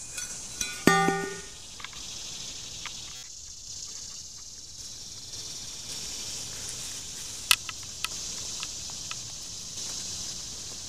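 Steel blade of a Lesche Sampson T-handle digging shovel striking into turf: a loud clank about a second in that rings briefly with a pitched tone. Then soft scrapes and a few sharp clicks as soil is worked loose and crumbled by hand, over a steady high hiss.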